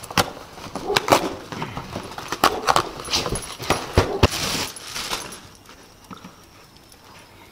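Cardboard box being ripped and pulled open by hand and by a dog's nosing, a run of sharp tearing snaps and crackles with a longer rip about four seconds in, dying down near the end.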